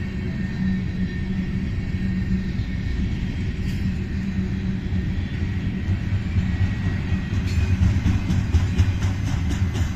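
Ferromex freight train rolling past with a steady low rumble. From about seven and a half seconds in, a regular clacking of wheels over the rails joins it, and the sound grows slightly louder.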